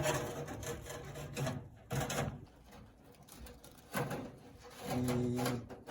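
A few light knocks and clunks of wooden cabinets being handled and set in place, with a short steady hum near the end.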